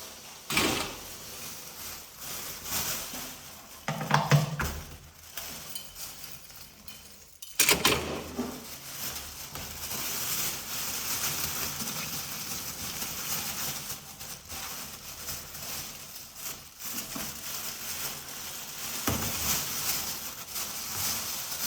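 Irregular metallic clattering and knocking at a chimney flue, with a few louder knocks over a steady hiss.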